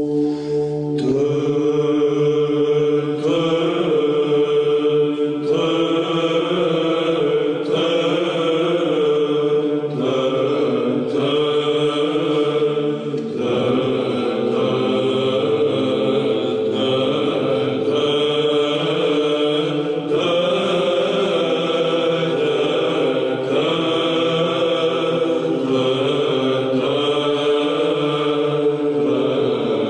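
Byzantine chant: a choir sings a slow melody over a steady held drone note (the ison).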